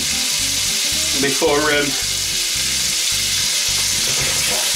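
Diced meat searing in hot oil in a cast iron pot, sizzling steadily as it browns, with a wooden spoon stirring it near the end.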